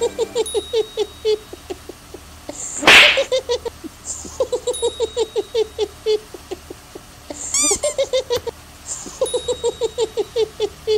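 An animal's rapid runs of short, high yipping or chattering calls, about seven a second, broken by brief pauses, with one sharp, sneeze-like burst about three seconds in.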